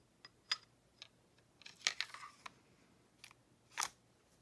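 The steel slide of a CZ75 SP-01 pistol being fitted and slid back onto its frame rails. It gives a series of sharp metal clicks, with a short scrape of metal on metal about two seconds in.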